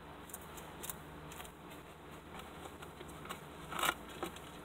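A lizard crunching dubia roaches: scattered short crackles and clicks, with a louder crunch a little before the end.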